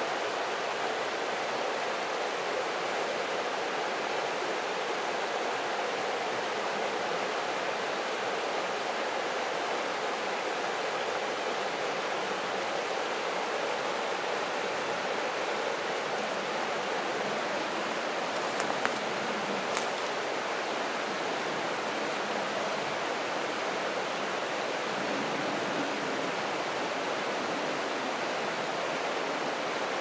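Shallow river rippling steadily over a stony bed, a constant rushing murmur of water. A few brief high ticks come about two-thirds of the way through.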